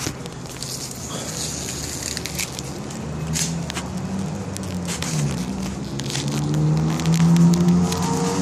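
Crackling and rustling, then a motor vehicle's engine comes in about three seconds in and runs with a wavering pitch, getting louder toward the end.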